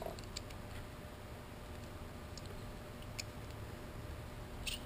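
Faint, scattered small metal clicks and ticks as the turbocharger's center-section parts are picked at with a steel pick and handled, a few light taps spread over the seconds with a slightly stronger one near the end.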